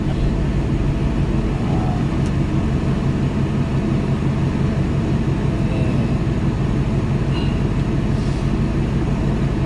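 Car engine and road noise heard from inside the cabin while driving at a steady speed: an even, low drone that holds steady throughout.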